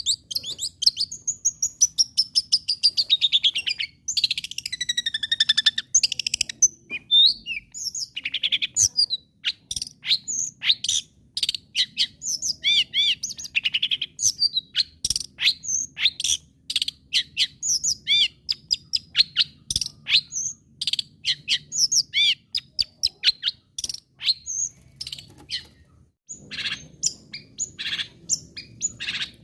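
Long-tailed shrike (cendet) singing a fast, varied chattering song of short sharp notes mixed with whistled glides, with falling whistles in the first few seconds and a brief pause near the end.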